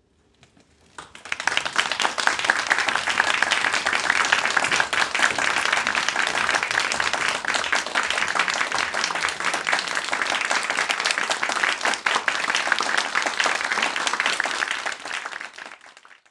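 Theatre audience applauding the cast at the curtain call. Dense clapping from many hands swells in about a second in, holds steady, then thins and cuts off near the end.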